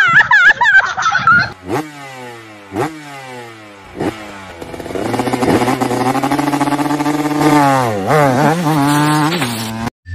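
A few children's voices shouting at the start. Then a motor scooter engine is revved in three quick blips, each pitch jumping up and sliding back down. After that it revs up and holds a higher, steady pitch, dipping twice, until it cuts off suddenly.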